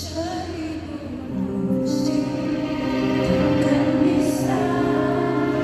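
A woman singing a ballad into a handheld microphone, with sustained instrumental backing.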